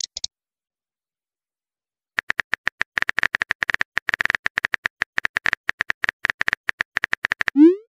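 Smartphone keyboard key-click sound effect: a rapid, uneven run of light taps begins about two seconds in as a text message is typed. Just before the end, a short rising swoosh marks the message being sent.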